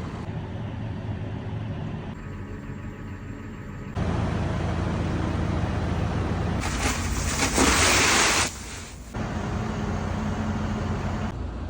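Tractor engine running steadily, heard across several abrupt cuts, with a loud rushing hiss for a second or two about seven seconds in.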